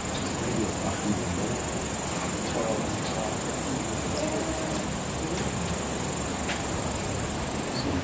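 Meadow insects chirring in one steady, high-pitched band, over a constant even hiss.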